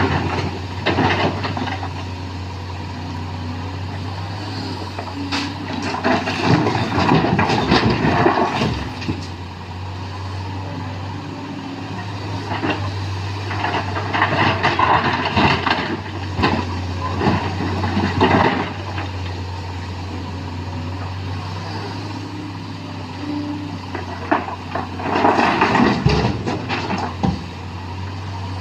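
Sany SY215C excavator's diesel engine running steadily while it loads rock into a dump truck. The engine is joined by louder stretches of rumbling and clatter four times, as rock is worked and poured into the truck bed.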